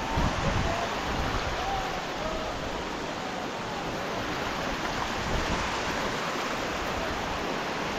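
Steady rush of water from a mountain waterfall and the small streams flowing below it.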